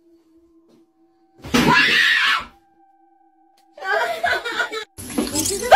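A woman's loud, startled scream lasting about a second, about a second and a half in: a jump-scare reaction.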